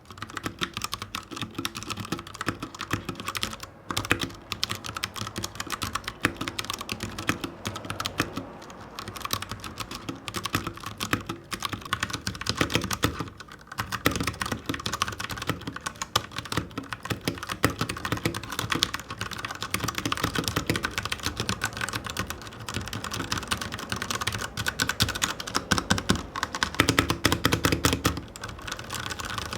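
Royal Kludge RK61 60% mechanical keyboard with brown switches being typed on, a fast, continuous run of key clacks. There is a short pause about halfway, and heavier, louder keystrokes near the end.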